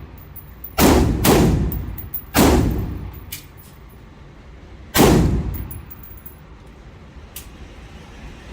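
Four gunshots from a semi-automatic firearm, fired one at a time: two about half a second apart, a third about a second later, and a fourth a few seconds after that. Each shot has a short echoing tail.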